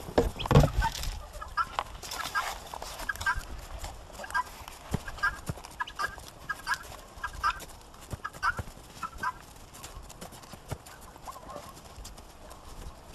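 Domestic poultry calling: short double calls repeating about once or twice a second for roughly eight seconds, then dying away. A brief loud burst of noise comes just after the start.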